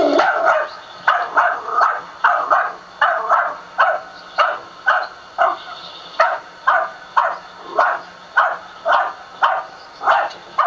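Small dachshund barking over and over in a fast, even string, about two to three short barks a second.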